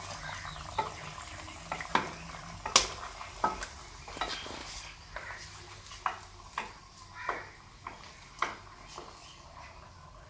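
Metal spoon scraping and knocking against a metal pot as beef karahi is stirred while it fries, with a faint sizzle underneath. The strokes come irregularly, the loudest knock nearly three seconds in, and thin out towards the end.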